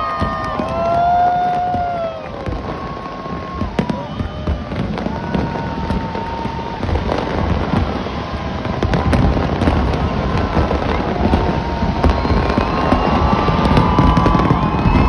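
Fireworks going off in a continuous barrage of cracks, pops and low thuds, with drawn-out tones gliding up and down over them near the start and again near the end.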